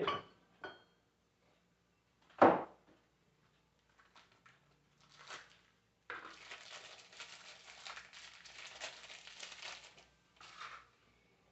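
Alternator parts being handled while a new bearing is fitted: a single sharp knock about two and a half seconds in, then about four seconds of crinkling and rustling.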